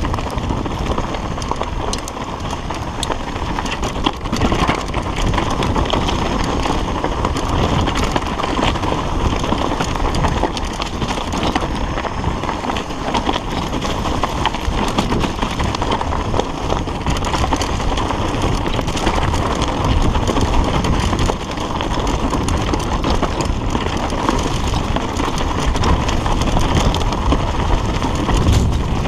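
Mountain bike riding fast down a rocky dirt trail. The tyres crunch over stones and the bike rattles with a constant clatter of small knocks.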